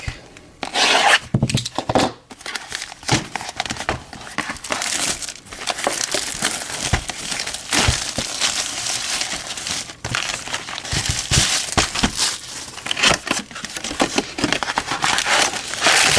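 Plastic wrapping crinkling and tearing as a hobby box of trading cards is unwrapped by hand, a continuous crackle with many sharp crinkles.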